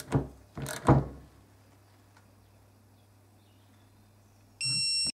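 Two sharp metallic knocks as the wrench and socket are handled on the sprocket nuts. Near the end comes a short, steady electronic beep from the digital torque wrench, signalling that its set torque on a sprocket nut has been reached, cut off abruptly.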